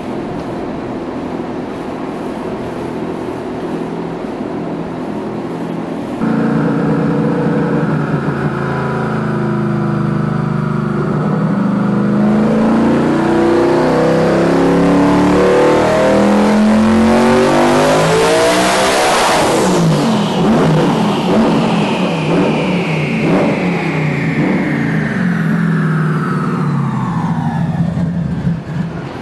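Turbocharged Ford GT V8 on a chassis dyno: running steadily at first, then louder about six seconds in and climbing in revs through a full-throttle pull that peaks about two-thirds of the way through. It then lets off and coasts down, with a high whine falling in pitch until near the end.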